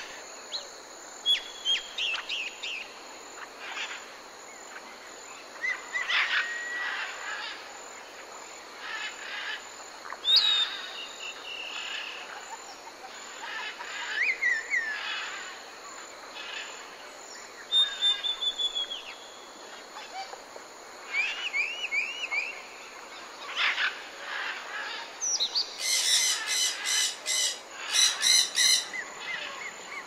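Mixed songbirds chirping and whistling: short calls, slurred whistles and quick trills scattered throughout. Near the end a louder run of harsh, rapidly repeated calls.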